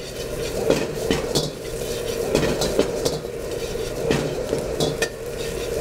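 A metal ladle clanks and scrapes against a wok in irregular strokes as chicken pieces and dried chillies are stir-fried over medium heat. The food sizzles steadily under a constant low hum.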